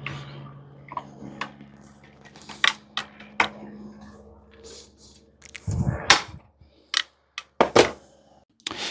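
Scattered metal clicks and clacks of a hand riveter being worked and handled, with a heavier knock about six seconds in.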